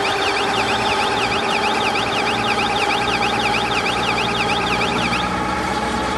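Straw baler machinery running with a steady motor hum. Over it a high electronic warble sweeps up and down about three times a second, then stops about five seconds in.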